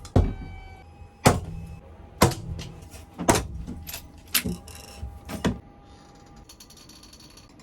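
A run of six loud, sharp knocks about a second apart, with lighter taps between, as the wall packers are fitted, then a brief stretch of fast clicking near the end.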